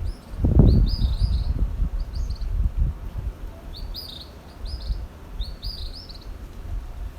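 Birds chirping: short clusters of two to four quick, high, down-slurred notes, repeated about every second. Under them runs a low, uneven rumble, loudest about half a second in.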